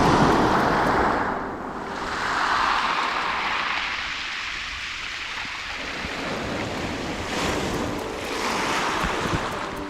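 Sea surf breaking on a pebble shore: three swelling washes of noise, loudest near the start, with wind buffeting the microphone.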